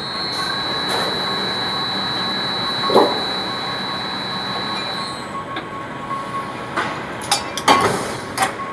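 Machinery running with a steady high-pitched whine over a mechanical din. The whine stops about five seconds in, and several sharp metallic clanks follow near the end.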